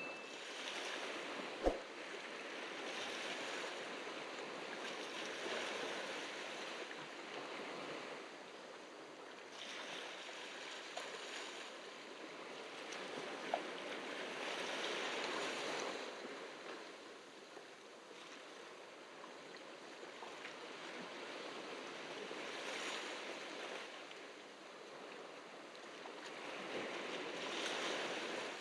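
Ocean surf washing onto the beach, a steady rush that swells and eases every few seconds as waves come in. A short sharp click sounds about two seconds in and again near the middle.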